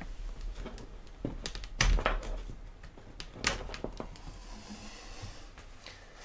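Clicks and knocks of an external drive's USB cable being unplugged from a netbook and handled. The loudest knock comes about two seconds in and another sharp one about a second and a half later.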